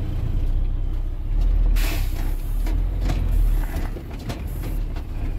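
Heavy truck's diesel engine pulling away in gear, a deep rumble heard from inside the cab, with a short sharp hiss of compressed air about two seconds in.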